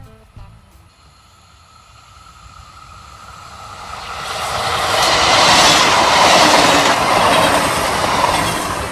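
Regional train approaching and passing close by, its wheel and rail noise swelling over several seconds to a loud, steady rush.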